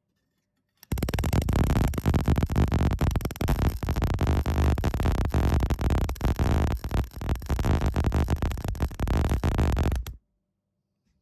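MIG welder running a continuous bead for about nine seconds: a dense, loud crackle that starts abruptly about a second in and cuts off suddenly near the end as the trigger is released.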